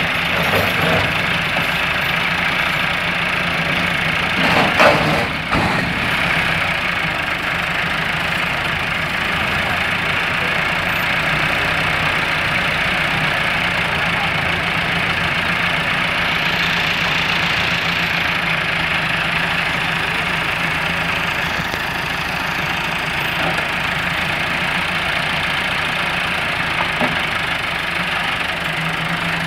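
Massey Ferguson 385 tractor's four-cylinder diesel engine running steadily at idle, with a brief louder clatter about five seconds in.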